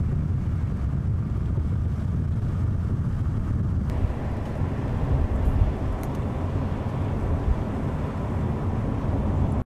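Car driving along a road, heard from inside the cabin: a steady low engine and tyre rumble. The noise changes about four seconds in and cuts off suddenly near the end.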